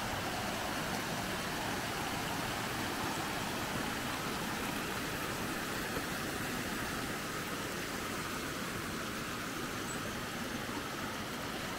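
Rain-swollen creek of muddy runoff rushing and splashing over rocks, a steady, even rush of water.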